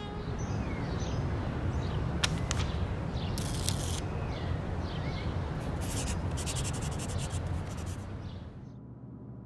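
Pen scratching on a paper notepad in short strokes, in two spells a few seconds apart, over a steady low rumble of outdoor background noise with a few faint short chirps. The background drops away near the end.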